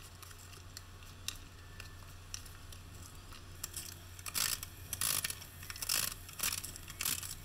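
Cordless drill driving washer-head screws into foam backer board: faint clicks at first, then from about four seconds in a run of short rasping bursts, about two a second.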